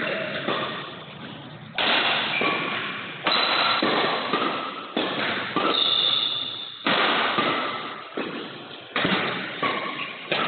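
Badminton rackets striking the shuttlecock during a doubles rally, a sharp hit about every one and a half to two seconds, each ringing on in a long echo through the hall.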